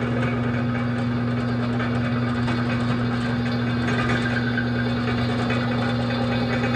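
Drill press running steadily with a strong motor hum while its bit drills down through a round steel tube.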